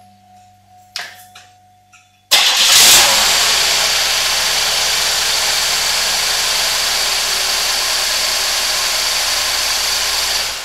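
A GM 3800 3.8-litre V6 cranks and starts about two seconds in, then runs steadily with a misfire: one coil of its ignition coil pack has failed, so the two cylinders it fires are dead and the engine is running on four of six. It shuts off right at the end.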